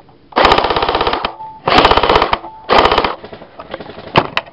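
Airsoft rifle firing three short full-auto bursts, a rapid even rattle of shots, the last burst the shortest. Two sharp single knocks follow near the end.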